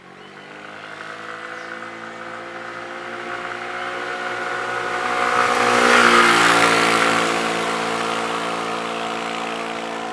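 Dafra SYM Cruisym 150 scooter's 150 cc liquid-cooled single-cylinder engine approaching, getting steadily louder, then passing close about six seconds in with a drop in pitch and fading as it rides away.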